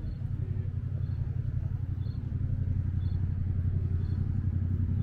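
A motorcycle engine idling, a steady low rumble.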